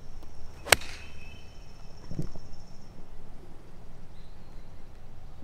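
A golf club striking the ball once, a single sharp click about a second in. A thin high steady tone runs behind it for the first few seconds.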